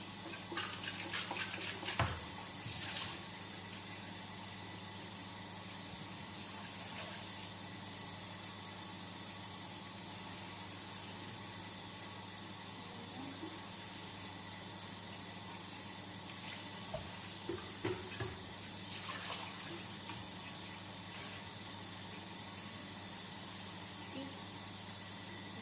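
Water running steadily from a tap, with a few short knocks and clinks in the first seconds and again about two-thirds of the way through.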